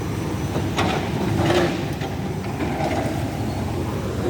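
Heavy-equipment diesel engine running with a steady low rumble, with a couple of short sharper sounds about a second in.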